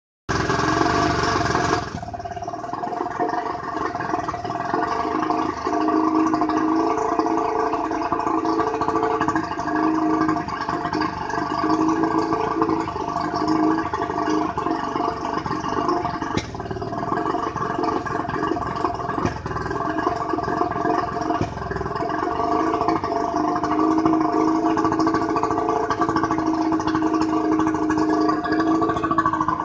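1989 Tohatsu 70 hp two-stroke outboard running, its note wavering in pitch and strength rather than holding steady. The owner shows this as a fault that remains after the carburettors were cleaned and the fuel replaced.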